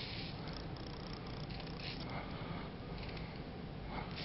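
Aerosol can of Break Free CLP spraying through its straw nozzle in several short hissing bursts onto an AR-15 charging handle, over a steady low rumble.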